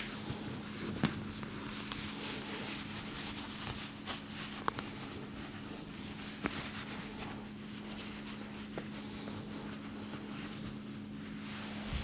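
Hands rubbing and working over a person's head and hair during a head massage, with a few sharp faint clicks, over a steady low hum.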